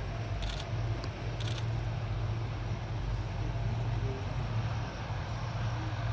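Steady drone of a Lockheed C-130H Hercules's four Allison T56 turboprop engines as it taxis past. Two short clicks, about a second apart, sound near the start.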